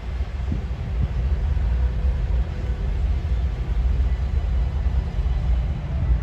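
Heavy truck's diesel engine idling, a steady low rumble.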